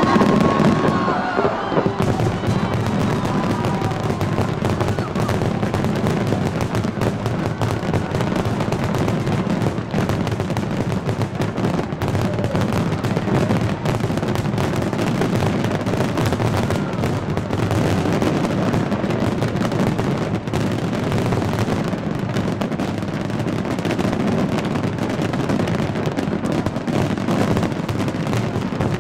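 A dense, continuous barrage of fireworks: rapid overlapping bangs and crackles that merge into a constant booming rumble with no pause.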